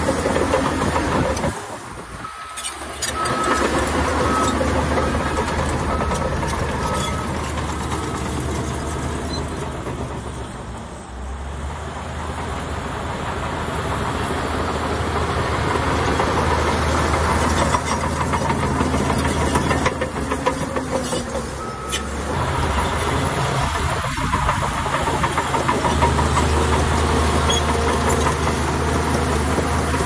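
Diesel engine of heavy earthmoving machinery running steadily, with a row of short, evenly spaced high beeps a few seconds in.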